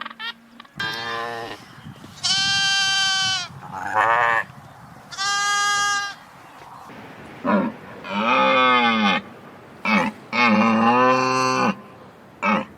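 Sheep bleating: a string of about nine bleats, long ones held for about a second mixed with short ones, some high-pitched and some lower.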